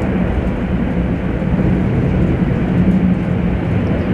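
Steady mechanical drone with a low hum, a machine running in the background.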